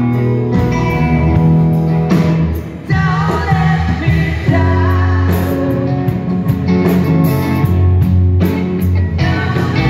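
Live rock band playing amplified through a PA: electric guitars, bass guitar and drums, with singing. The music drops back briefly a little before the three-second mark, then the full band comes back in.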